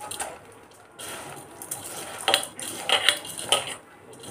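Food being mixed by hand in a stainless steel bowl, with fingers scraping and clinking against the metal in several short bursts.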